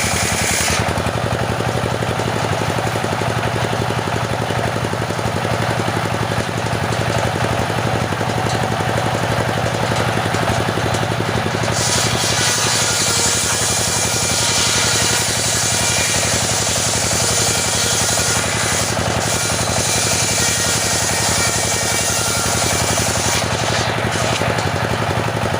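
Stihl two-stroke chainsaw running steadily at high speed, sawing teak. Its sound turns brighter and hissier from about halfway through until near the end.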